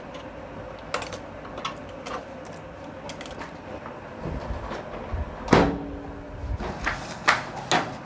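Handling noises of a microwave oven's door and its protective tape being pulled off: scattered clicks, rustles and knocks. The loudest knock comes about five and a half seconds in, and two more come near the end.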